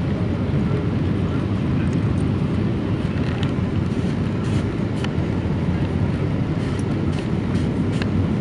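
Steady low rumble of a Boeing 777-300ER airliner on its landing approach, with a few faint ticks scattered through it.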